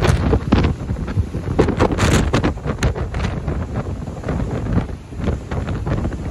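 Storm wind buffeting the microphone in rumbling gusts, over heavy surf breaking on the shore.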